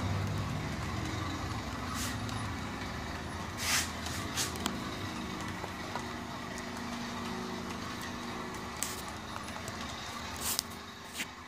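Model railway train, a Class 37 diesel hauling a long rake of coaches, running on the layout track: a steady low running hum that fades as the train moves away, with a few sharp clicks.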